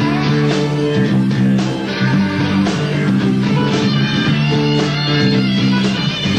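A live rock band playing an instrumental passage: electric guitars over bass and steady drums.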